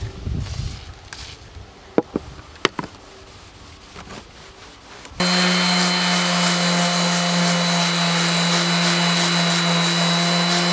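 A DeWalt random orbital sander running steadily on the rusty steel blade of a Disston crosscut saw, stripping rust and patina, with an even hiss over a steady hum. It starts suddenly about halfway through. Before it, only faint rubbing and a few sharp clicks.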